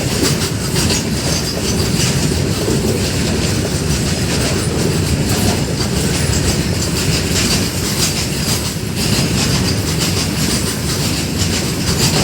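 A train rolling past close by, its wheels clattering steadily over the track.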